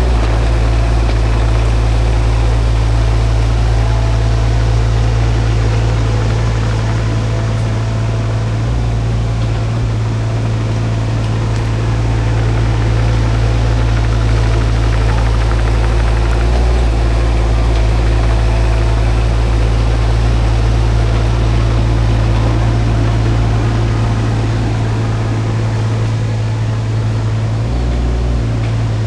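Shantui mini excavator's diesel engine running steadily under way, with its low hum and engine tones shifting slightly a few times.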